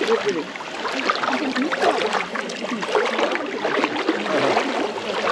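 Hot-spring pool water splashing and sloshing as a person moves through it, with other bathers' voices talking in the background.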